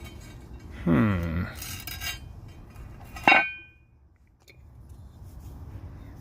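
A short pitched sound with a wavering pitch about a second in, then a single sharp metallic clank that rings briefly about three seconds in.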